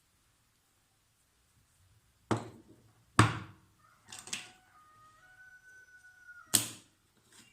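Sharp clacks and knocks from a parcel and its contents being handled, starting about two seconds in: two single clacks, a quick double knock, a faint thin squeak, then a last loud clack near the end.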